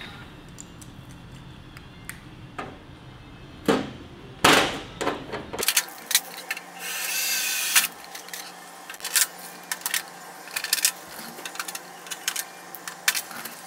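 Sharp clicks and snaps of clecos being set with cleco pliers to hold a fiberglass fender flare on a steel fender, with a power drill running briefly a little past the middle, boring a hole through the flare and fender.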